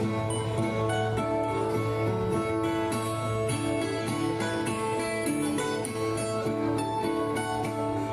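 Brazilian viola strummed and plucked in a steady instrumental passage, the accompaniment played between the sung verses of repente.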